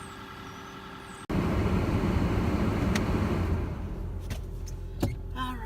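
Steady rushing noise of a running car heard from inside the cabin, starting abruptly about a second in and easing a little after a few seconds, with a couple of light clicks.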